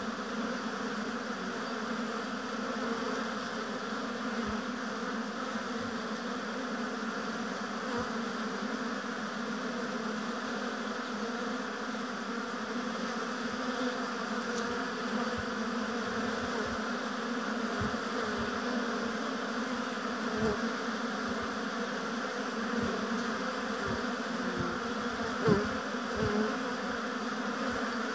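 A swarm of honeybees around the hives buzzing as a steady, dense hum, with a few soft low thumps and one louder thump near the end.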